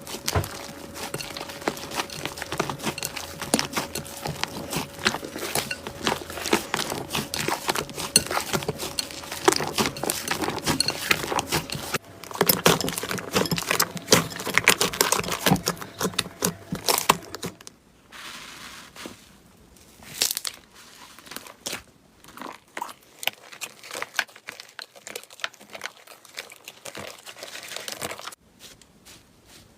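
Slime being squeezed and worked by hand, giving a dense run of crackles and pops. The crackling changes about twelve seconds in and thins out to scattered pops after about eighteen seconds.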